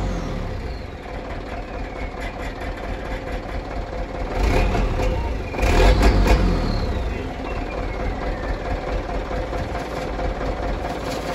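Mitsubishi Canter truck's diesel engine idling through an aftermarket Fortuner-style muffler, heard at the tailpipe; it is revved twice near the middle, the revs falling away after each.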